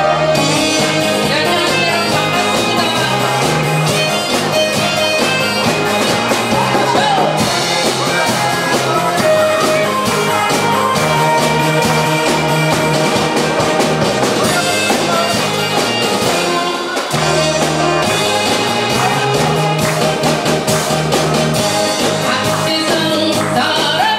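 Music: the instrumental introduction of a Korean trot song, played loud with a steady beat and sustained melody notes.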